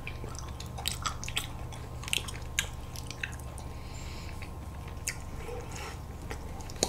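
Close-miked biting and chewing of ice cream bars, one of them a chocolate-coated Dwaeji-bar: scattered sharp mouth clicks over a steady low hum.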